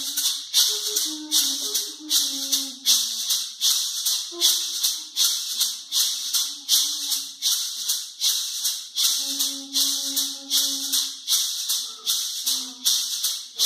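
Gourd maracas shaken in a steady rhythm, about two strokes a second, with a low melody of held notes running alongside.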